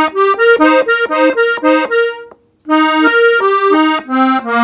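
Gabbanelli three-row button accordion, tuned in F, playing a slow ornamental run in E-flat on the treble buttons: a quick string of short notes that breaks off a little past two seconds in and starts again after a short pause.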